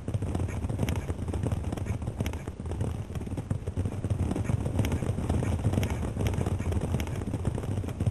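A horse's hoofbeats on the ground, irregular knocks over a steady low rumble.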